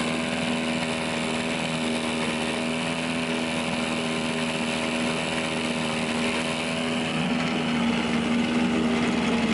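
1967 Evinrude 3 HP two-stroke outboard motor running steadily with its lower unit in a test barrel of water, getting slightly louder about seven seconds in.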